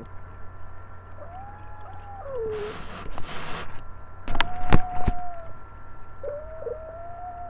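A domestic cat growling in long, drawn-out yowls that slide slowly in pitch, with two hisses about two and a half and three and a half seconds in and a few sharp clicks around the middle. The cat is angry and giving a defensive warning at being held when she doesn't want to be.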